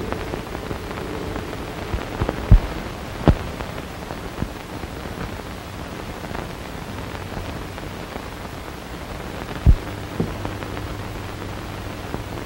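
Steady hiss of an old film soundtrack with a faint low hum, broken by a few sharp pops and clicks.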